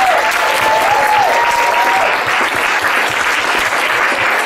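Audience applauding: dense, steady hand-clapping from many people.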